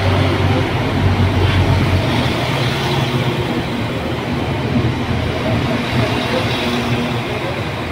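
Northern Ireland Railways Class 4000 diesel multiple unit running at the platform: a steady diesel drone with rail noise, easing a little in the second half.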